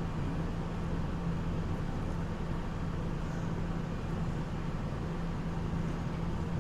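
Steady hum of a Nagoya Municipal Subway 3000-series car's Mitsubishi pressure ventilating fans running over the rumble of the moving train, unchanging throughout.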